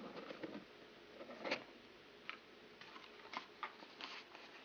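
Faint scattered taps and light rustles of a cardboard jewellery box being handled and its lid lifted off.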